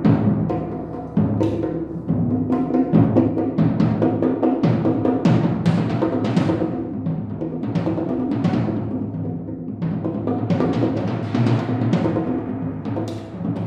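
A set of tom-toms played with sticks in a dense, continuous run of strokes. Several drums of different pitch ring together under the strikes.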